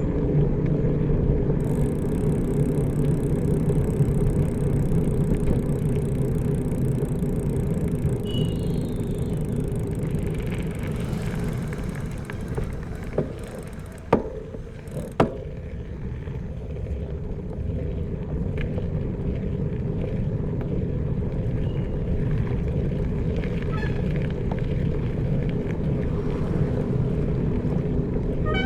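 Steady low rumble of a bicycle ride along a road, tyres and wind on the move, easing off briefly in the middle where three sharp clicks or knocks sound. A few faint bird chirps come through.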